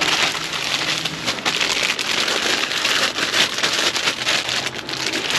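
Plastic trash bags rustling and crinkling steadily as gloved hands dig through them, a dense crackle with a faint low hum underneath.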